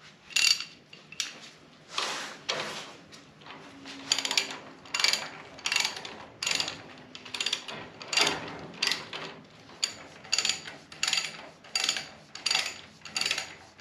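Socket ratchet clicking in short bursts about twice a second as the brake caliper's mounting bolts are tightened down.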